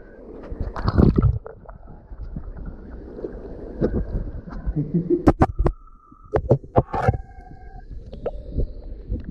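Water splashing as a large cave fish thrashes in a shallow pool, with many sharp knocks and thumps from close handling around the phone. A few short steady tones sound after the middle.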